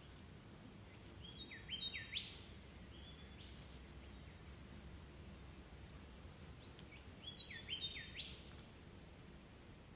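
A bird calling twice, about six seconds apart. Each phrase is a few quick falling notes ending in one sharp rising whip-like note, over a faint steady low rumble.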